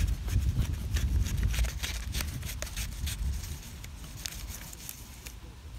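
Fillet knife cutting down to a bullhead's spine: a run of small crackling clicks as the blade works through flesh and bone, dying away about five seconds in, over a low rumble.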